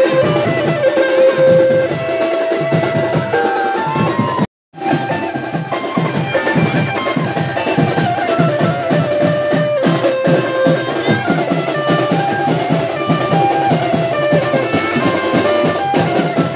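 Loud dance music with a driving drum beat and a stepping melody on top. It cuts out for a moment about four and a half seconds in, then carries on.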